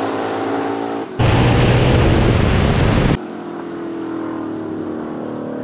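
Drag race cars running hard down the strip, a loud engine noise that cuts off suddenly and returns about a second in. From about three seconds in it gives way to a quieter, steadier engine hum.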